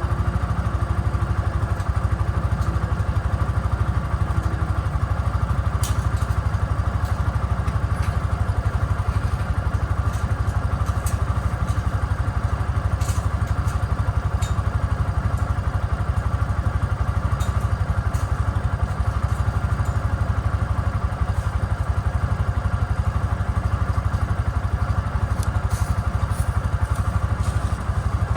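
Small engine running steadily at an even speed, with a few light clicks and knocks.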